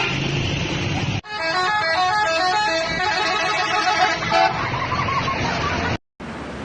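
A bus's 'telolet' multi-tone musical horn plays a quick tune of stepped notes, starting abruptly about a second in and lasting around three seconds, over engine and street noise. The sound cuts out briefly near the end.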